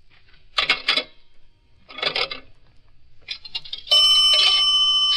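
A few short clattering knocks, then near the end an old electric telephone bell starts ringing loudly, a radio-drama sound effect.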